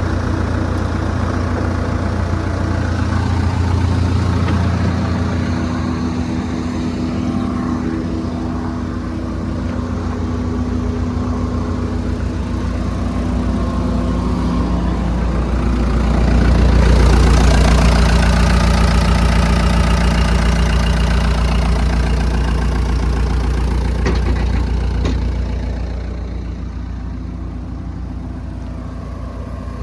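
Gehl 5635DXT skid steer's diesel engine running. It grows louder and harsher from about the middle of the stretch for some nine seconds, then settles back to a steadier run.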